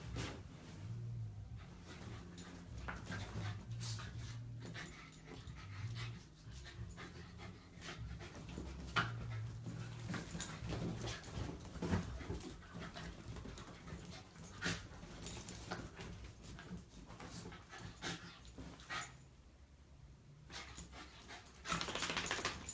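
Miniature schnauzer mix panting during rough play with a cat, with scattered short scuffling sounds from paws and bodies on the bedcover.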